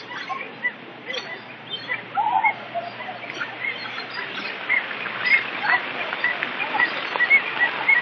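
Birds chirping: short high chirps repeating every half second or so, coming more often in the second half, with one lower call about two seconds in. Underneath runs the steady rush of a small waterfall splashing into a pond.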